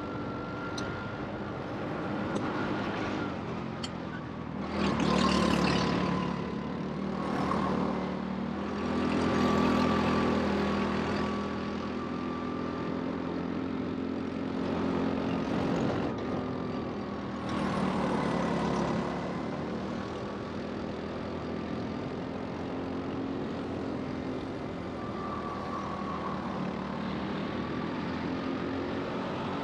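Rental go-kart running on the track, its engine note rising and falling, with several louder swells along the way.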